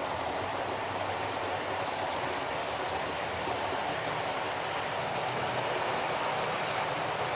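OO gauge model diesel locomotive, a Hornby Class 31 mechanism under a Lima Class 31 body, running with a long train of nine bogie vehicles: a steady noise of motor and wheels rolling on the track, growing slightly louder toward the end.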